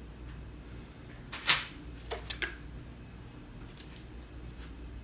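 Handling noise from dredging an egg-dipped eggplant slice in flour: a sharp knock about a second and a half in, then a few light taps, over a low steady hum.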